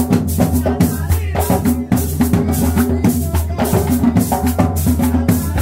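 Drum-led music with a shaker, keeping a steady, even beat.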